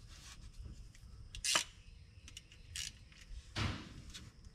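A few sparse metallic clicks and taps of a socket wrench being fitted onto the 14 mm oil drain plug, the sharpest about a second and a half in, with a short scrape near the end.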